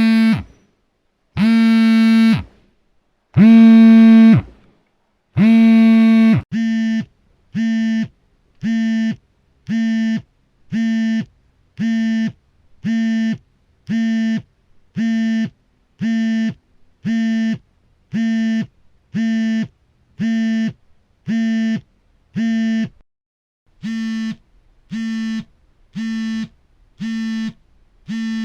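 Smartphone vibrating, buzzing in pulses: four long buzzes of about a second each, two seconds apart, then a quick run of short buzzes, about three every two seconds, with a brief pause near the end before they start again.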